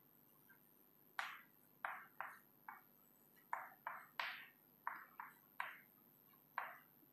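Chalk writing on a chalkboard: about a dozen short, sharp chalk strokes and taps at an uneven pace, each fading quickly.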